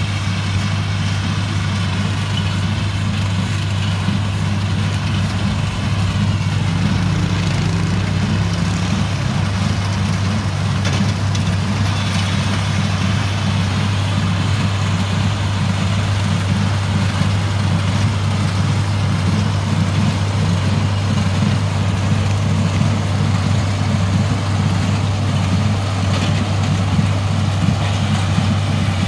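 Oliver 1650 tractor engine running steadily at a constant pace while driving a small square baler, with the baler's machinery working along with it.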